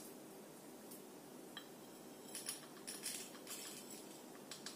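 Dry rice grains poured from a small glass into plastic bottle caps, landing in short rattling trickles with pauses between. The caps are being filled to make a homemade bottle-cap castanet rattle.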